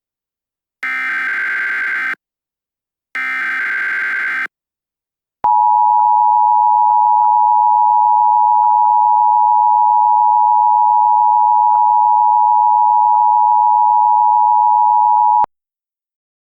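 Emergency Alert System activation: the last two buzzing data bursts of the SAME digital header, each about a second long, then the EAS two-tone attention signal (853 and 960 Hz together). The attention signal holds steady for about ten seconds and cuts off suddenly.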